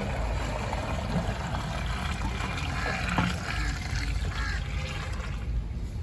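Buffalo milk being poured out of a steel milk pail onto a weighing scale: a steady pouring splash.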